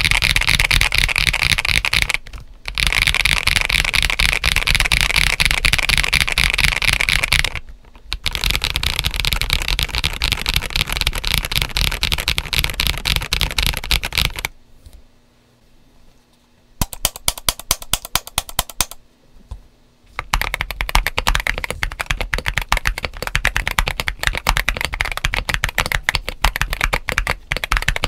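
Fast typing on a GAS67 mechanical keyboard, first on the 'poppy' build with lubed Akko CS White switches and BoG ABS doubleshot keycaps over PE foam. After a pause about halfway, a run of about ten evenly spaced single keystrokes follows. Then comes typing on the 'crunchy' build with lubed Gazzew U4T tactile switches and SA-profile ABS keycaps, which sounds deeper.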